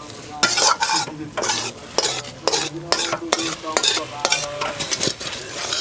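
A ladle stirring and scraping through food in a cooking pot, about two strokes a second, with the food sizzling as it cooks.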